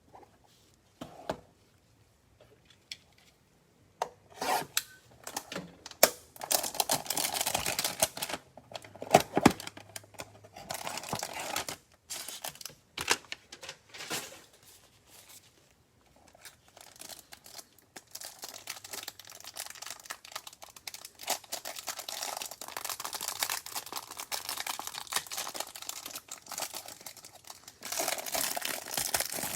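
Plastic wrapper of a trading-card hanger pack being torn open and crinkled, with scattered clicks and rustles from the packaging and cards being handled. The first few seconds hold separate clicks, followed by two long stretches of continuous crinkling.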